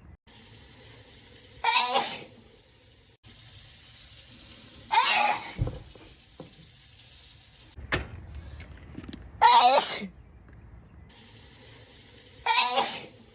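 A person sneezing four times in a row, roughly every three seconds, each a short loud voiced "achoo" during a sneezing fit. A steady background hiss starts and stops abruptly between the sneezes.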